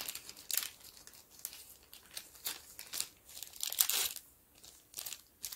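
A small clear plastic bag crinkling as it is handled, in short irregular rustles, loudest about four seconds in.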